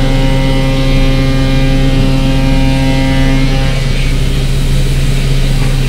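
Doosan DNM 500 CNC machining center milling plastic, which the uploader takes for acetal, with the spindle at 8000 rpm: a loud, steady machining hum with several steady tones, heard through the machine's enclosure with coolant splashing. The tone shifts slightly about three and a half seconds in.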